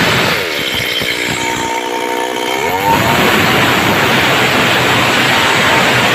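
Stihl MS 382 two-stroke chainsaw ripping a log lengthwise at full throttle. About half a second in the throttle eases and the engine drops to a lower, steadier note for a couple of seconds, then it revs back up about three seconds in and the chain bites into the wood again.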